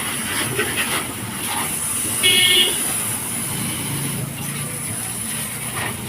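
A short, high vehicle horn toot about two seconds in, over a steady background hiss.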